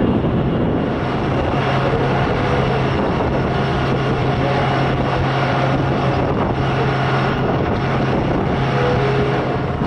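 Airbus A320 jet engines running steadily as the airliner rolls along the runway: an even rumble with a steady low hum underneath.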